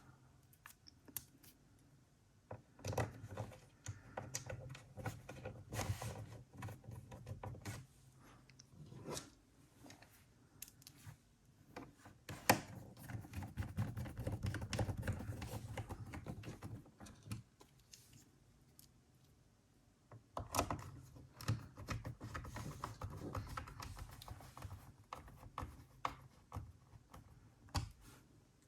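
Screws being driven into a laptop's plastic bottom case with a small screwdriver: spells of rapid small clicks and scraping with handling noise, in three stretches with quieter gaps between.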